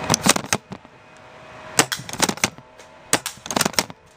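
Airsoft FAMAS rifle firing quick strings of sharp shots, three groups of several rapid cracks about a second apart.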